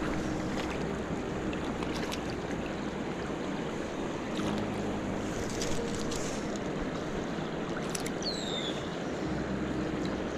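Shallow river water running over rocks, with wind on the microphone.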